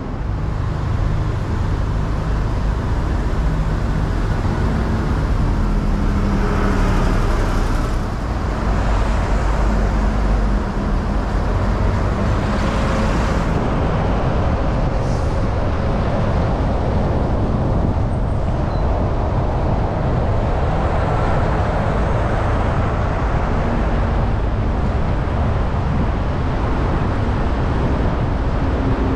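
Steady road and traffic noise from a car driving along a busy city road: a deep tyre and engine rumble under an even hiss, swelling briefly twice.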